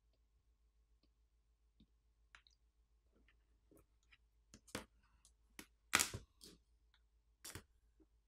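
Faint ticks, then a few sharp clicks and snaps as a tablet's lithium-ion pouch battery is pried up off its isopropyl-softened adhesive with a pry tool. The loudest snap comes about six seconds in, with a brief crackle after it.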